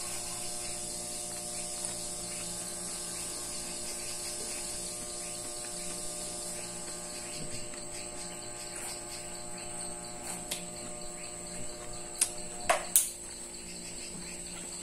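Steady electrical hum with a high-pitched whine and faint rapid ticking underneath, and a few sharp clicks about twelve to thirteen seconds in.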